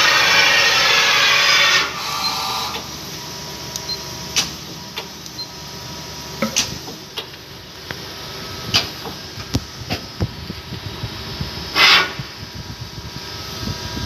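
Okuma LS-30N NC lathe powered and running: a loud hiss for about the first two seconds, then a steady hum with a thin high whine, broken by scattered clicks and knocks and a second short loud hiss about twelve seconds in.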